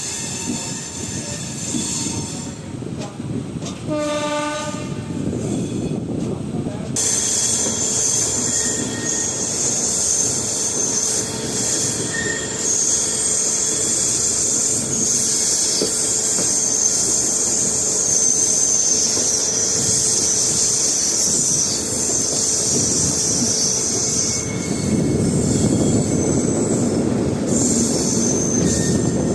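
Passenger express train running, with a steady rumble from the rails. A train horn sounds once for about two seconds, around four seconds in. From about seven seconds the running noise becomes suddenly louder, with a high steady squeal and hiss over the rumble.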